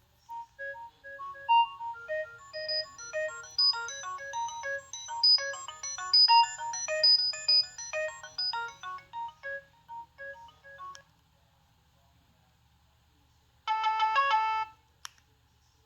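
Nokia 6610's preloaded ringtone playing through the phone's small speaker: a quick electronic melody of short beeping notes, several sounding at once, lasting about eleven seconds. After a pause, a short burst of rapid repeated notes plays near the end.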